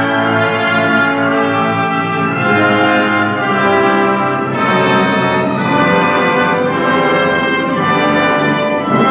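Full symphony orchestra playing a loud, sustained passage, brass prominent over the strings, with chords changing about every second.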